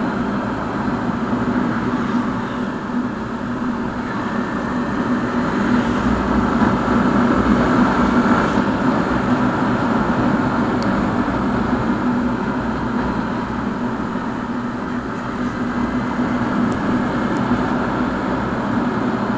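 Motorcycle engine running steadily while cruising, with wind rushing over the microphone.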